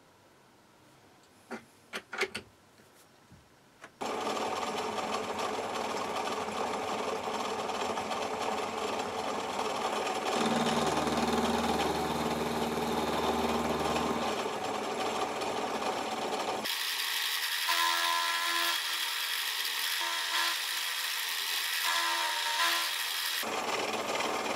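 A few light clicks, then from about four seconds in a Dore Westbury milling machine runs steadily, its 12 mm four-flute end mill cutting a brass crank disc held in the vise. The sound changes abruptly about two-thirds of the way through.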